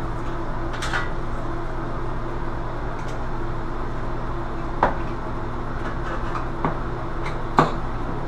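Metal bathroom vanity light fixture being handled as it comes off the wall: four short knocks and clinks, the loudest near the end, over a steady low hum.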